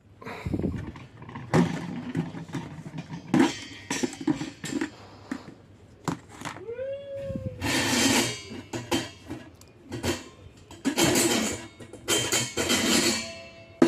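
Stainless-steel strainer basket and jar of an oil-draining spinner machine being handled and pulled off: irregular metal knocks and clunks, a short squeal, and three scraping, ringing rattles of about a second each near the middle and end.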